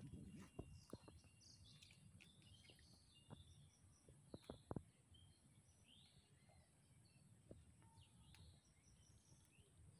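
Near silence: faint outdoor ambience with scattered short bird chirps and a few soft ticks about three to five seconds in.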